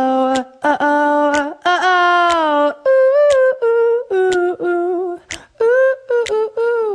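A male voice humming an unaccompanied melody as the outro of an acoustic pop song, a run of short separate notes that rise and fall, stopping near the end.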